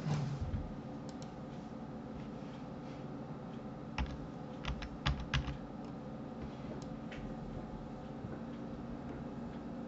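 Computer keyboard and mouse clicks while working in software: a cluster of presses right at the start, then a quick run of five or six clicks about four to five and a half seconds in, over a steady low hum.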